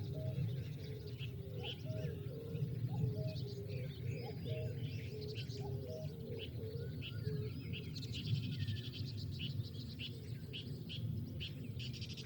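Several birds chirping and calling: many short high chirps over a row of short, lower repeated notes, with a fast high trill joining about eight seconds in. A steady low rumble runs underneath.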